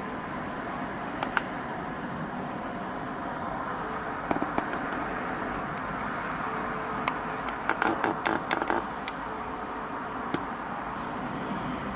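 Steady hum of distant city traffic, with a few sharp clicks and a quick run of clicks about eight seconds in.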